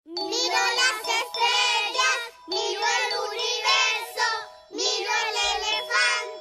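A children's song: high-pitched, child-like singing in three short phrases over steady held backing tones.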